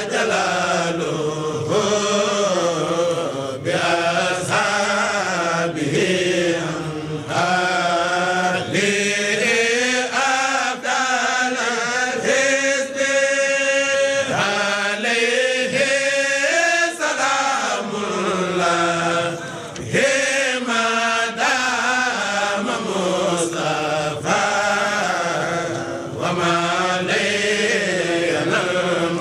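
Chanting of an Arabic devotional poem, a Mouride khassaid, sung in long, wavering melodic phrases with drawn-out held notes.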